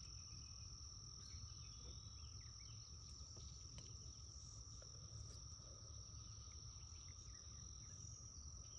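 Faint steady high-pitched insect chorus, crickets trilling without pause, with a few faint chirps above it.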